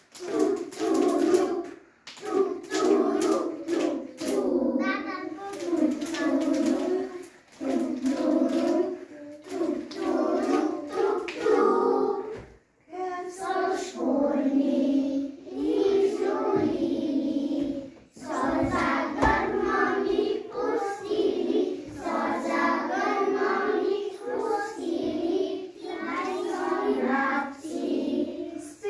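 A group of young kindergarten children singing a Slovene song together in unison, in phrases separated by brief pauses.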